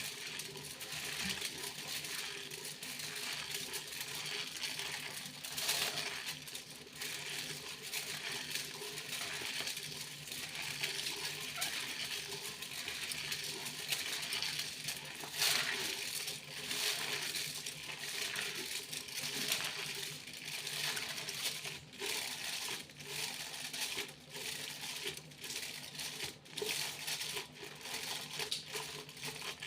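Foil being crinkled and rustled by hand, a continuous crackle with louder crunches about 6 and 15 seconds in, turning more stop-start near the end. A faint steady low hum sits underneath.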